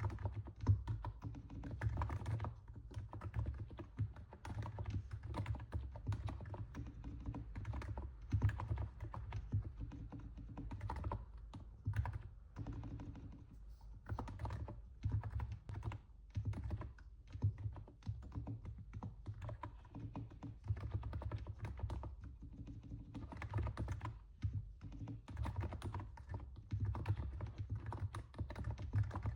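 Continuous typing on a NiZ 68 Pro electro-capacitive keyboard: a fast, steady run of soft, deep keystrokes, a sound likened to stepping on snow, with a few brief pauses.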